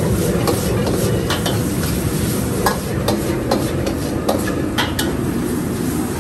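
Stir-frying in a wok: a metal wok spatula scraping and clacking against the steel wok many times, with food sizzling over the steady low rush of a high-flame commercial wok burner.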